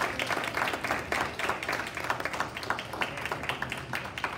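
Audience applauding, many hands clapping at once, the clapping beginning to thin out near the end.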